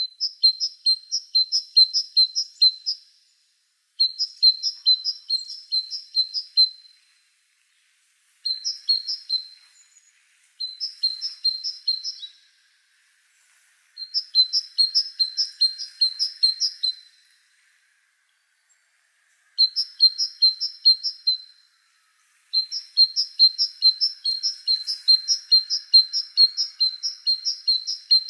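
A bird chirping in runs of quick, evenly repeated high notes, about three a second. Each run lasts a few seconds with short pauses between, and the last run goes on longer.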